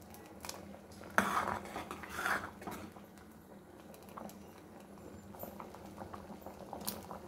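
A steel ladle knocks once against the side of an aluminium pressure-cooker pan about a second in, then scrapes and stirs through a thick simmering jaggery and coconut-milk mixture, with faint small clicks and bubbling.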